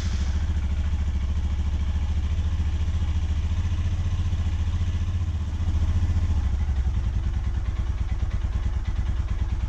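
Royal Enfield Himalayan's single-cylinder engine running at idle on the centre stand, in gear with the rear wheel and chain turning. Its note changes briefly about six to seven seconds in.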